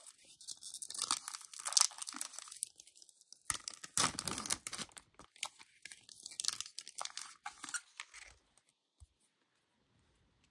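A plastic trading-card pack wrapper being torn open and crinkled in the hands, in irregular crackling rustles for about eight seconds. The pack did not tear cleanly.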